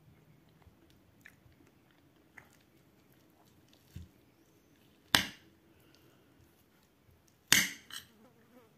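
A metal spoon knocking and scraping on a plate while eating, with two sharp loud clinks, one a little past halfway and one near the end, followed closely by a smaller one. Faint chewing and small clicks of the spoon in between.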